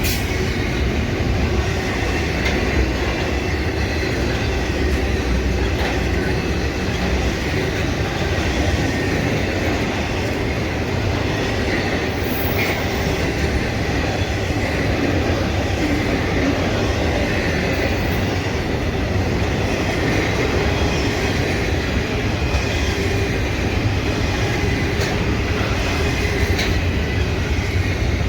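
Norfolk Southern freight train rolling steadily past: a continuous rumble of steel wheels on the rails with light clicking at the rail joints and a faint high wheel squeal.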